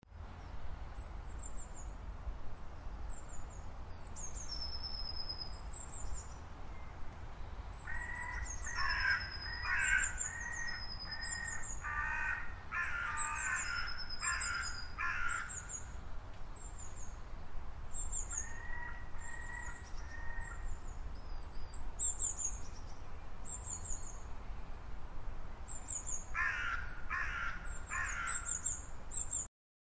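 Wild birds calling: small birds give thin, high chirps and whistles throughout, while lower, harsher calls come in short series of several notes at three points, over a steady low rumble. The sound cuts off abruptly just before the end.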